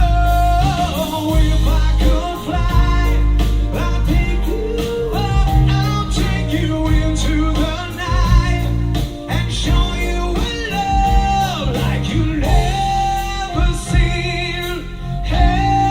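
A song with a singing voice, guitar and a heavy bass line with a steady beat, played back through a Klipsch The Three Plus speaker.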